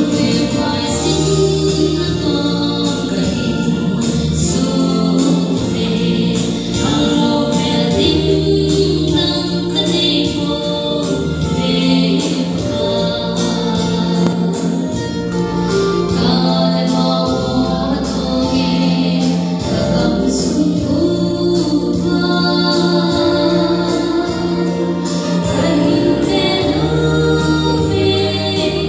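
A woman singing a gospel song into a microphone, amplified in a church hall, over instrumental accompaniment with steady held bass notes.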